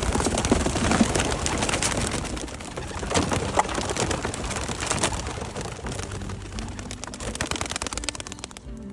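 A flock of young racing pigeons clattering their wings as they take off and fly, a dense patter of wing claps. It is loudest at first, fades over several seconds and cuts off just before the end.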